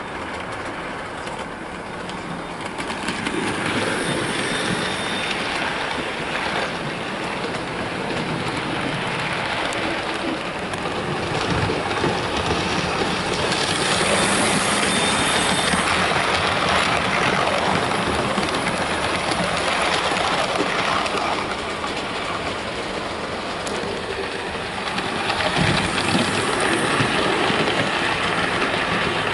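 Hornby OO gauge Princess Coronation class model locomotive running on the track while hauling a rake of model coaches: a steady whirr of motor and wheels on the rails. It grows louder twice, from about twelve seconds in and again near the end, as the locomotive and then the coaches pass close by.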